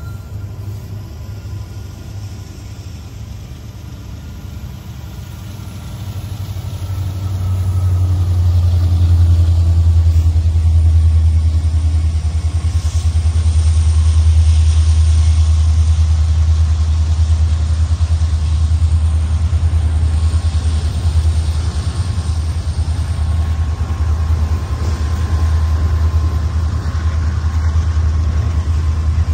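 Freight train passing close by: the last diesel locomotives, then double-stack intermodal container cars rolling over the rails. A deep steady rumble grows louder about seven seconds in and then holds.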